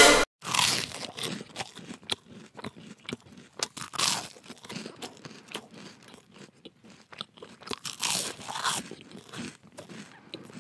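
Close, irregular crunching and chewing, someone eating something crisp, with many small crackles and a few louder bites.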